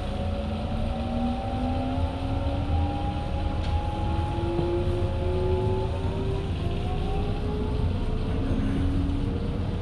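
Electric commuter train accelerating: the traction inverter and motors whine in several tones that climb slowly in steps, over a steady low rumble.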